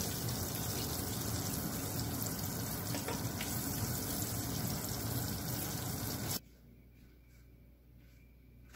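Hot oil bubbling and sizzling steadily around beancurd-skin rolls of pork and shrimp deep-frying in a pot. It cuts off suddenly about six seconds in, leaving quiet room tone.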